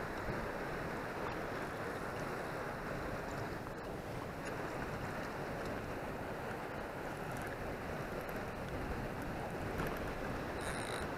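Steady wind noise on the microphone, an even rushing hiss with no distinct events.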